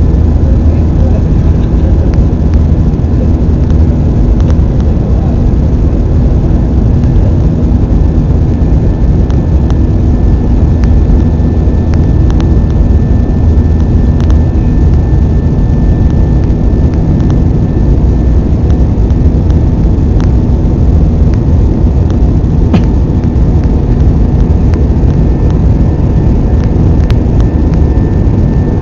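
Airbus A320 cabin noise: a steady, loud rumble of the engines and rushing air, with faint steady tones above it.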